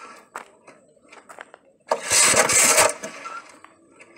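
Recoil starter cord on a Goldoni two-wheel tractor's engine pulled once about two seconds in: the engine turns over for about a second and does not catch. Small clicks and knocks of the starter being handled before and after.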